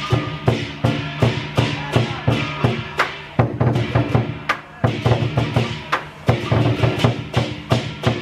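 Lion dance music played by a percussion ensemble. A large Chinese lion drum is beaten in rapid strokes, several a second, with cymbals crashing along.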